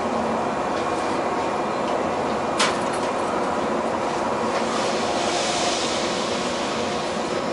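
Steady running noise inside a JR West 117-series electric train car standing at the platform, its onboard equipment running while it waits to depart. A single sharp click comes about two and a half seconds in, and a hiss swells around five seconds in.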